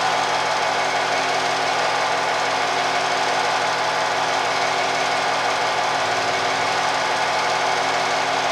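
Film projector running: a steady, rapid mechanical clatter with an even hum.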